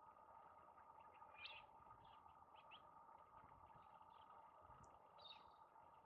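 Faint, brief bird chirps, a handful scattered through, over a steady faint hum.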